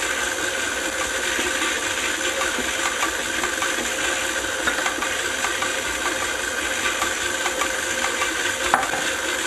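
Steady machine hum and hiss with two steady tones, and a few light clicks as a silicone spatula scrapes a glass measuring cup, one sharper click near the end.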